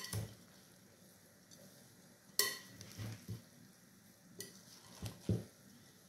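Metal slotted spoon stirring grated pumpkin and rice in a glass bowl. There is one sharp ringing clink against the glass about two and a half seconds in, then softer knocks and scrapes around three and five seconds in.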